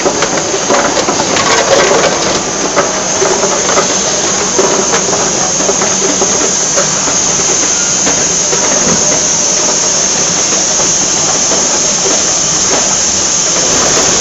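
Machinery of an automated parts-feeding line running: a steady hiss-like noise with many small clicks and rattles throughout.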